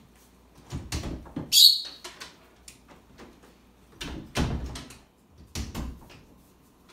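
Interior house door and footsteps: knocks and thumps about a second in with one sharp rattling clack, then more thumps between about four and six seconds in as the door is opened.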